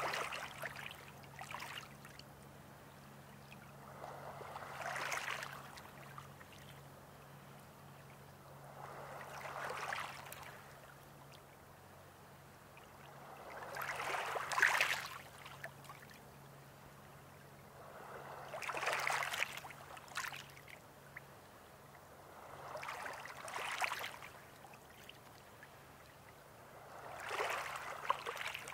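Small lake waves washing onto a pebble shore, each one a swelling, rushing splash that fades away, coming about every four to five seconds.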